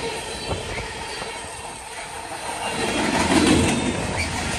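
Freight cars of a manifest train rolling past close by, their steel wheels rumbling and clacking on the rails, growing louder about three seconds in.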